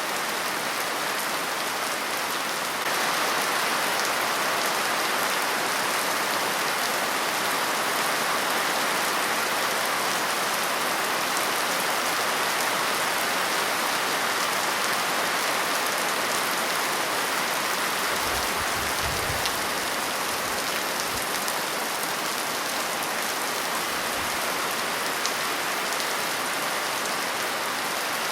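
Steady rain falling on a surface, a dense even patter that gets a little louder about three seconds in. A few faint low rumbles come a little past halfway.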